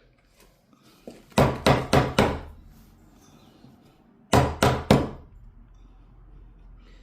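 A hammer striking a 2-inch wood chisel, chopping the outline of a butt-hinge recess into timber. Four quick blows come about a second in, then three more after a pause.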